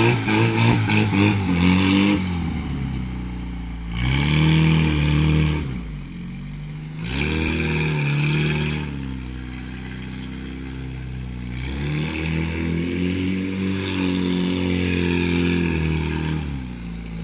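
Engine of a homemade cage buggy revving in repeated surges as it is driven in circles on dirt: a run of quick throttle blips at the start, two surges a few seconds apart, then a longer stretch of higher revs near the end.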